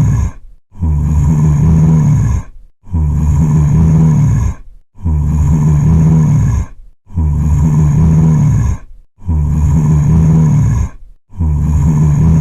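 Zombie groan sound effect: a low, drawn-out vocal moan repeated identically about every two seconds as a loop, with short silent gaps between groans.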